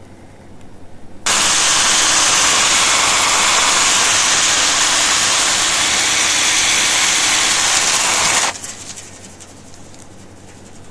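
10-inch battery-powered chainsaw cutting into a tree trunk. It starts abruptly about a second in, runs loud and steady for about seven seconds, and cuts off suddenly.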